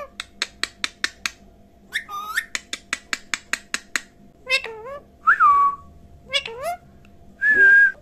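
Indian ringneck parakeet making runs of sharp clicks between short whistled calls that glide up and down in pitch, ending with a longer steady whistle.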